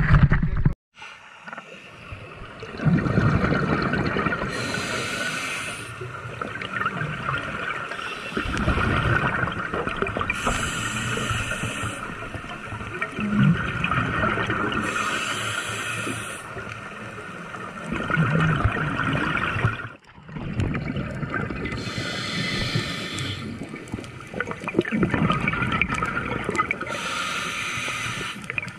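Scuba breathing heard underwater: a hissing breath through the demand regulator about every five to six seconds, alternating with the bubbling rumble of each exhalation.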